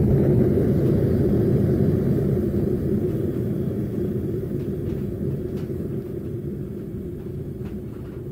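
Homemade venturi propane burner in a brick gas forge running with a steady low rumble that gradually gets quieter as the gas is turned down.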